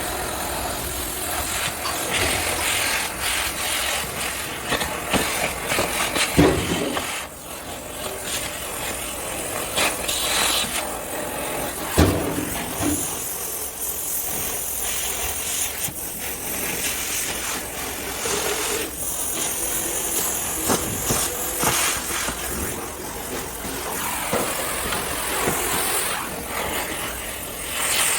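Steady hissing workshop noise from work on a car being dismantled, with two sharp knocks, about six and twelve seconds in.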